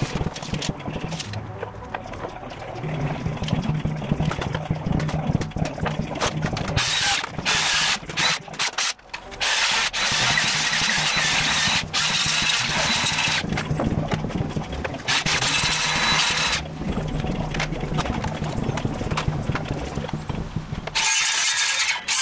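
Circular saw cutting through timber in a series of cuts, each lasting about one to two seconds.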